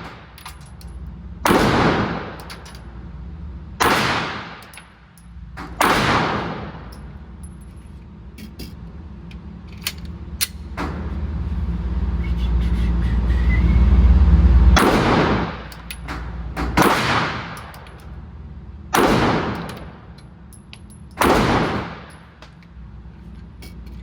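Seven 9 mm pistol shots from a Glock 45, each with a ringing, reverberant tail: three about two seconds apart, then after a pause of about nine seconds four more at the same pace. A low rumble swells during the pause and cuts off at the fourth shot.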